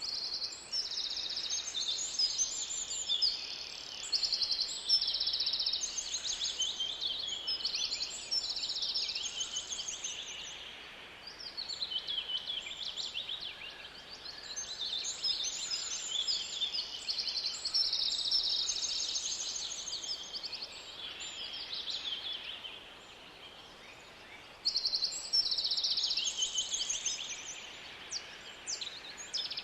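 Forest birds singing in an overlapping chorus of fast trills and chirps, with a quieter spell about three quarters of the way through.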